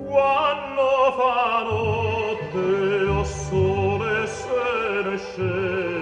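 Operatic singing with strong vibrato over an orchestral accompaniment, with the voice coming in at the start and holding long notes, played back through a tube hi-fi amplifier.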